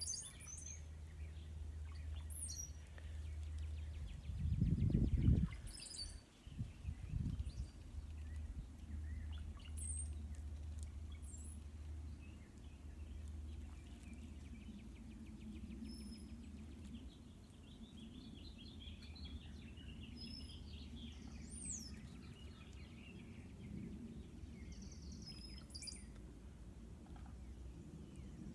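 Birds chirping: scattered short high calls and quick pitch sweeps over a low steady hum, with a loud low rumble about five seconds in.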